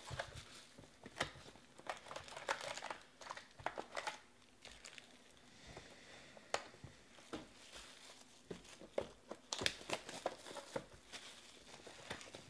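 Plastic wrapping crinkling and tearing as hands unwrap and open a sealed box of football trading cards, with scattered light clicks and scrapes from the cardboard box being handled.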